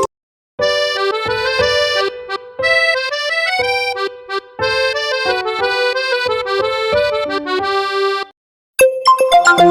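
Huawei Honor 9a ringtone: an accordion-style melody of quick notes that starts about half a second in and stops about a second and a half before the end. The next ringtone begins near the end.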